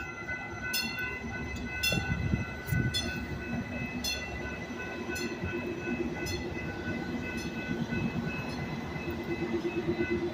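Metrolink Arrow diesel multiple unit pulling into the station, its engines rumbling, while a bell rings steadily about once a second. A steady hum from the train grows stronger near the end.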